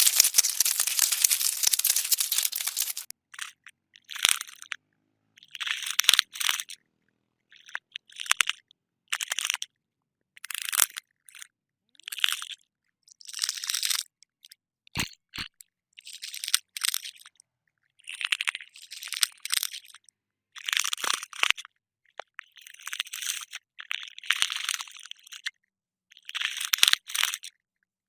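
Cockroach sound effect: close-up crackling flutter of cockroach wings. It starts as a dense, continuous crackle for about three seconds, then breaks into short scratchy bursts every second or two with silent gaps between.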